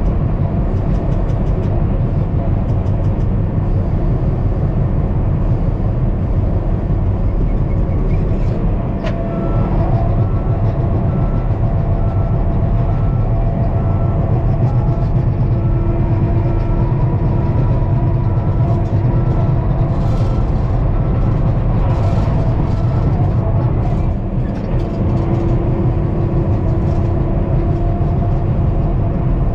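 John Deere 550K crawler dozer running under load while grading: its diesel engine works steadily, with tracked-machine clatter. From about nine seconds in to about twenty-three seconds in, a steady repeated beeping sounds over it.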